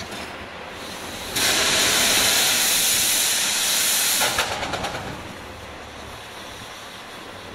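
Steam locomotive venting steam: a loud hiss starts suddenly about a second and a half in, holds for about three seconds, then drops away into a softer, fading hiss.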